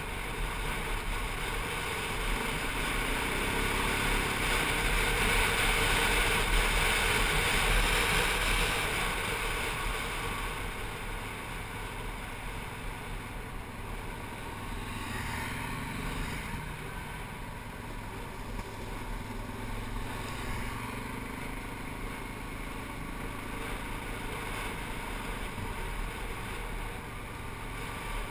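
ATV engine running steadily while riding, with tyre noise on the gravel and wind on the microphone. It is louder for the first several seconds and eases off a little after about ten seconds.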